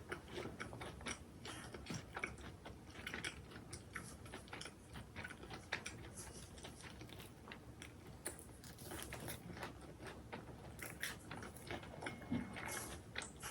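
Close-miked mukbang eating sounds: a person biting and chewing crunchy food, with a steady run of short, sharp crunches.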